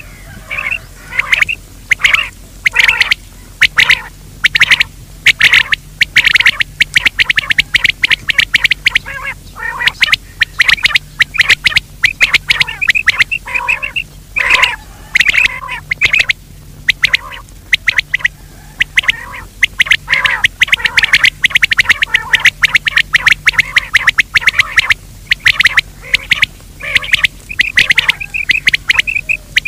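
Recorded game bird calls: dense runs of short calls several a second, with a few brief pauses. A faint steady low hum runs underneath.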